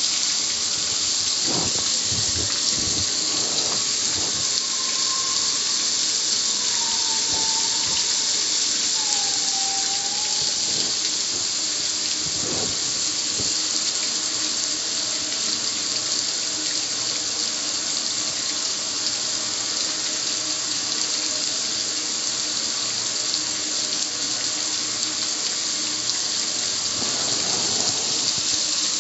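Water from a garden hose spray nozzle hitting the metal lid and front panel of a gas grill: a steady hiss of spray spattering and running off.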